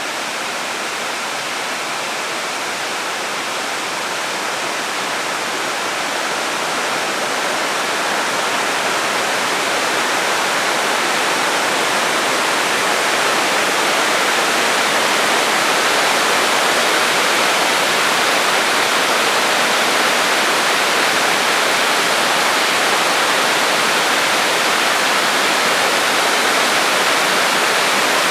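Waterfall: a steady rush of falling water that swells gradually louder over the first half, then holds.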